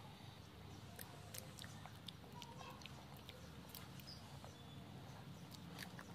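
Faint sounds of a person chewing soft chocolate cream cake: scattered small wet clicks and lip smacks over a low steady hum.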